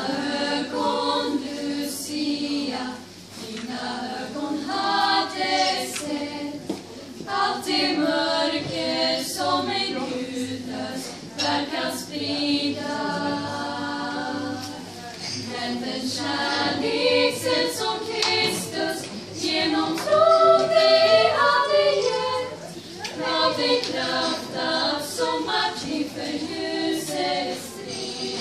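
A small choir of young women singing a Swedish Lucia song in unison, unaccompanied, with long held notes.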